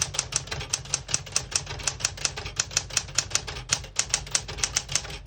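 Keys of a 1973 Smith-Corona Galaxie Twelve manual portable typewriter striking in a fast, steady run, several sharp clacks a second, as a sentence is typed. Every key strikes cleanly, with none skipping or sticking.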